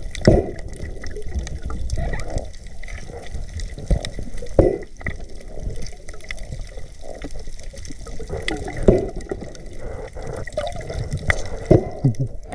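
Water sloshing and gurgling, muffled, with a few louder splashes scattered through it.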